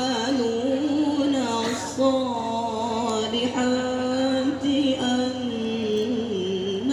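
A young man's voice chanting unaccompanied through a microphone and PA, in long held notes with wavering melismatic ornaments, in the style of Islamic devotional recitation. There are short breaks for breath about two seconds in and again past the middle.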